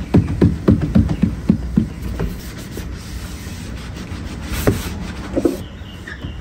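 A scrub pad rubbed back and forth over the soapy, wet glass of a car door window, cleaning it before tint film goes on. The strokes are quick and strong at first, about three or four a second, then become quieter and more spaced out.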